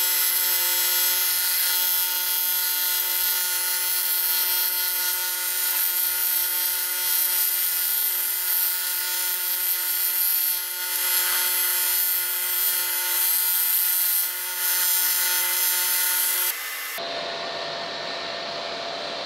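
TIG welding arc on the aluminium cylinder head of a 1.5-litre Daewoo Lanos, welding up cracks in a combustion chamber: a steady buzz with hiss that dips briefly twice. About sixteen seconds in, it cuts off to a quieter steady hum.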